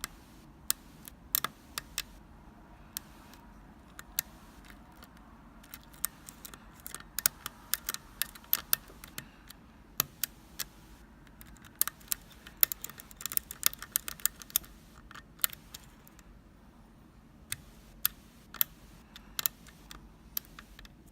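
Lock pick and tension wrench working the pin stack of an Assa Abloy FAB euro cylinder: irregular small metal clicks, scattered at first and coming in dense clusters in the middle.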